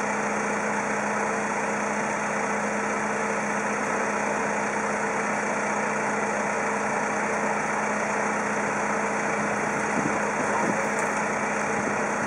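An engine or motor running steadily at constant speed: an even hum under a broad rush of noise, unchanging throughout.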